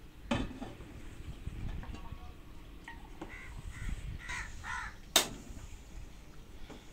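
Crows cawing several short times in the middle, over metal kitchen handling: a knock as a stainless-steel pot is set on a gas stove burner just after the start, and a sharp clank as its steel lid is set down about five seconds in.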